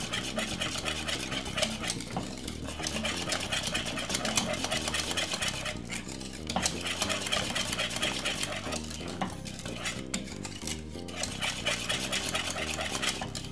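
Wire whisk beating cornmeal porridge in an aluminium milk pan, its wires clicking and scraping rapidly against the metal sides, with a few short pauses.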